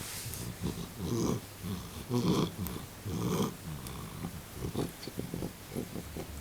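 Tomcat snuffling and snorting through its nose with each breath, in place of purring. Three louder breaths come about a second apart, then a run of quicker, shorter ones.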